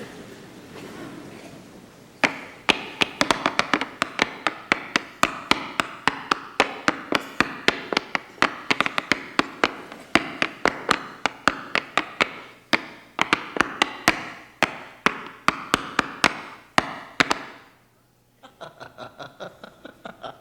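Tap shoes striking a hard stage floor in an irregular run of sharp taps, many each second. After a short pause near the end comes a quicker, quieter flurry of taps.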